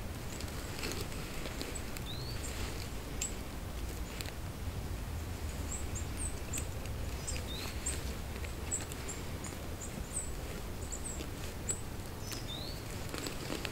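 A low, steady outdoor rumble with small birds giving short high chirps every few seconds, and faint clicks and rustles of cord being pulled and tied around an antler bow piece.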